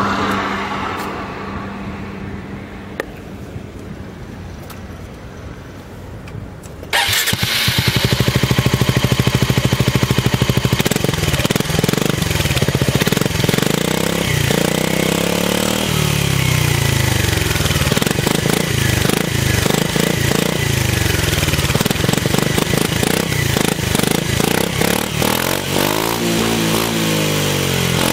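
Suzuki Skywave 250 scooter's single-cylinder four-stroke engine, breathing through a Beams SS400 titanium aftermarket muffler with a semi-racing baffle. The engine starts suddenly about seven seconds in and idles briefly, then is revved up and down several times in the garage.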